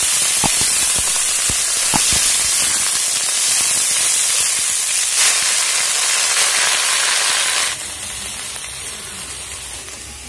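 Washed, chopped cauliflower leaves hitting hot oil in a wok: a loud sizzle with scattered crackles and pops, dropping off sharply to a quieter frying sizzle for the last couple of seconds.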